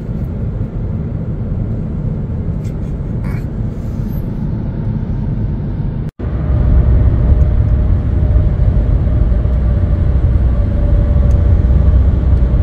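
Steady road and engine noise of a car driving, heard from inside the cabin. After a brief break about six seconds in, the rumble is louder and deeper, with a faint steady hum: highway driving.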